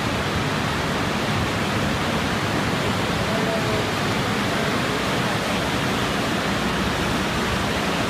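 Steady, dense machine noise from a running air-conditioning hose fibre-braiding production line, a constant even din with no distinct beats or pauses.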